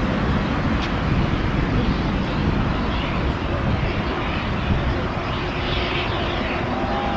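Airbus A380-842 with Rolls-Royce Trent 900 engines landing, touching down about four seconds in on a wet runway. It gives a steady rushing jet noise that holds even throughout.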